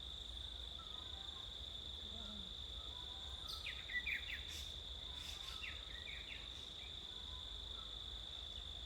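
An insect's steady, high-pitched trill, with two short flurries of bird chirps about four and six seconds in.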